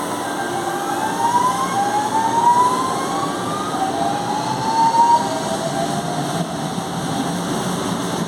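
CPTM Series 2070 electric train's traction motors whining as it accelerates: several clear tones that climb in pitch in repeated steps over a steady running noise.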